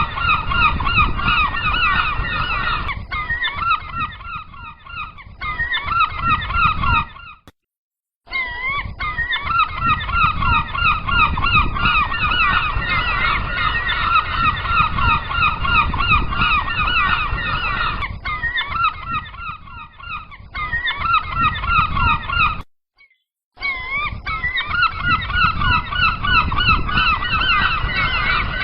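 A flock of gulls calling without pause, many loud overlapping calls with a low rumble underneath. The sound cuts out completely twice, for under a second each time.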